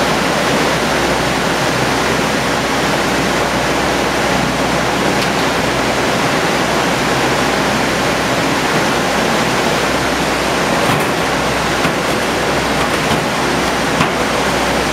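Steady loud rushing noise of fish processing machinery and conveyor lines, with a low hum underneath and an occasional faint knock.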